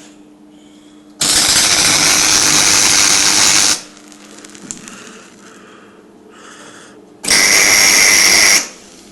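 MIG welding arc crackling in two bursts, the first about two and a half seconds long and the second just over a second, with a steady low hum between them.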